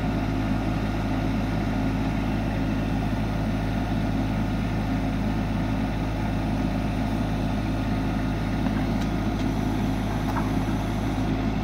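Kubota mini excavator's diesel engine running steadily while the machine lifts a steel I-beam on a strap.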